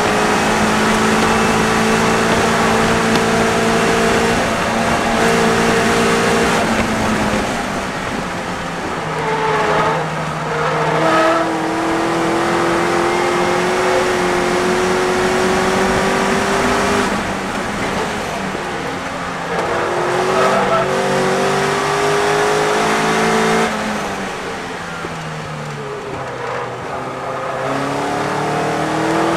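Westfield race car engine heard from inside its open cockpit at racing speed, with heavy wind rush. The engine note climbs steadily in each gear and breaks several times at gear changes and lift-offs for braking. It drops to a quieter stretch about two-thirds through as the car slows for a corner, then rises again near the end.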